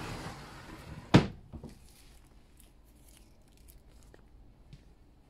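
A brief rustling at first, then a single sharp knock about a second in, the loudest sound here, followed by a few faint clicks.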